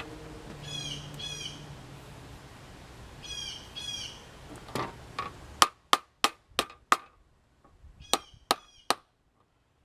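Birds calling in short chirps, a few times. Partway through comes a quick run of about seven sharp taps or knocks, with three more near the end.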